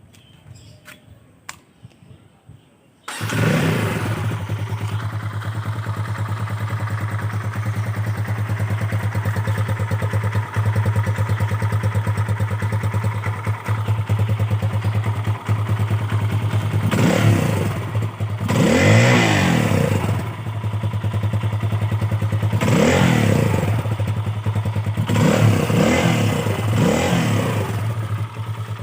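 Kawasaki KLX 150 single-cylinder four-stroke engine breathing through a Yoshimura full carbon aftermarket muffler: it starts about three seconds in and settles into a steady idle. In the second half it is revved in several short throttle blips, each rising and falling back to idle.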